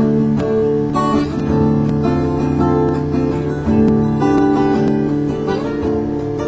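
Instrumental acoustic guitar music, strummed and picked, with no singing.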